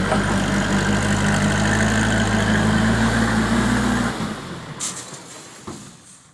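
Diesel engine of a backhoe loader running steadily, then falling away about four seconds in. A short sharp click comes near the end.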